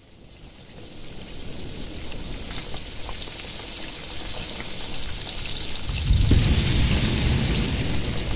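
Title sound design: a hissing noise with faint crackles fades in from silence and grows louder, and a deep rumble joins about six seconds in.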